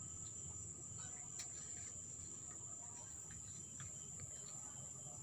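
Quiet background tone with no speech: a steady high-pitched whine over a low hum.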